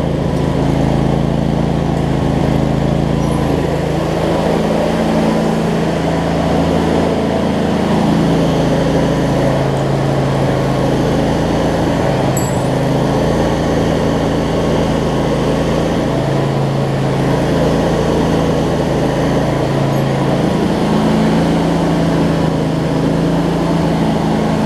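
25 hp Briggs & Stratton V-twin engine of a Craftsman DLT riding mower running steadily, its pitch shifting slightly now and then. It is running well after a wiring repair.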